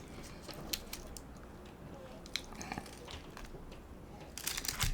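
Mouth chewing and biting crisp fried food, with scattered small crunches and a louder burst of crunching near the end.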